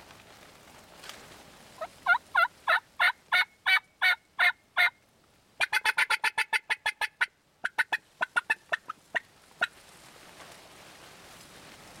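Turkey calling: a run of about nine loud, evenly spaced yelps, followed by a quicker run of about a dozen sharp notes and then a looser, trailing series.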